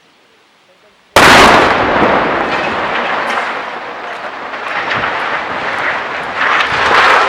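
A powerful explosion goes off about a second in with a sudden, very loud blast. Several seconds of noisy rumble follow, scattered with sharp crackles, and the rumble swells again near the end.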